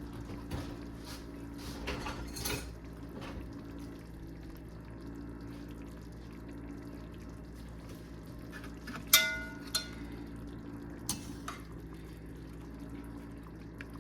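Curry being spooned from the pot into a bowl: small wet scoops and light knocks, then one sharp ringing clink of a utensil against the pot about nine seconds in, followed by two lighter knocks, over a steady low hum.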